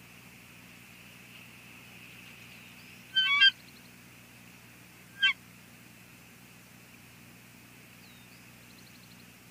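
Bald eagles calling while mating on the nest: a loud burst of rapid, high chittering notes about three seconds in, then one short call about two seconds later.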